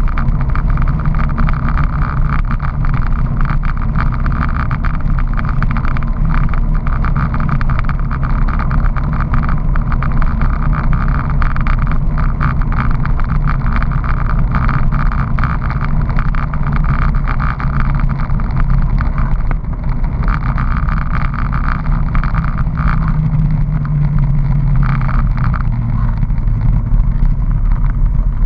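Honda PC800 motorcycle's V-twin engine running at a steady cruise, with wind and road noise over the bike.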